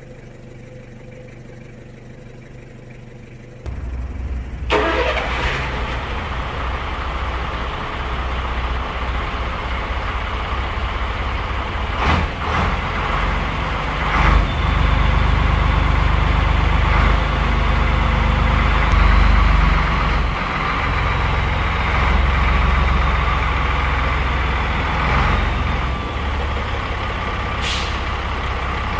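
Scania P82H truck's diesel engine running, jumping sharply louder about three and a half seconds in as the truck moves off under load. A few short, sharp sounds cut across it, one of the clearest near the end.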